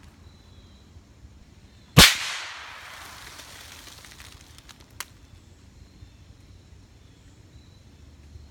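A single .308 rifle shot about two seconds in, its echo rolling away over about a second and a half. A much fainter sharp crack follows about three seconds later.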